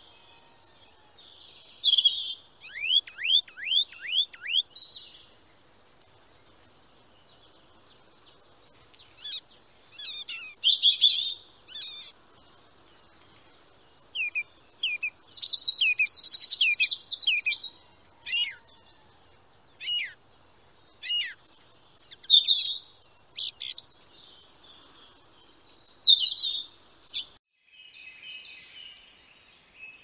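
Small songbirds chirping and singing in bursts of short high chirps, quick trills and downward-sweeping notes, with quiet pauses between the bursts. Near the end the sound changes to a fainter, steadier twitter.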